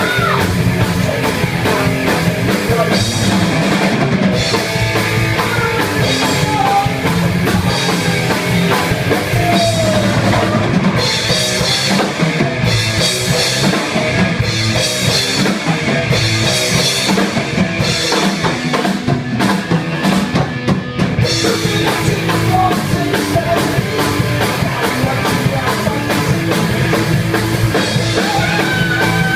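Rock music with a drum kit.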